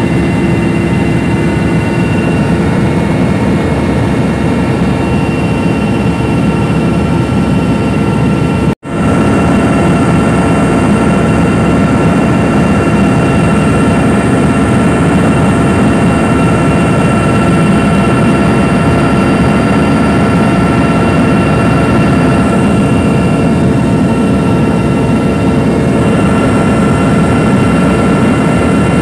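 Helicopter in cruising flight heard from inside the passenger cabin: a loud, steady drone of engines and rotor, with several steady high whining tones over it. The sound breaks off for an instant about nine seconds in, then carries on unchanged.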